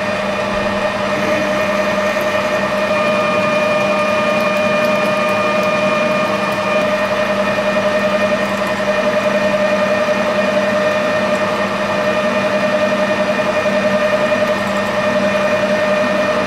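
Metal lathe running steadily with its chuck spinning, a 5 mm tapping drill in the tailstock boring into hex bar stock; the machine gives a constant hum with a few steady tones.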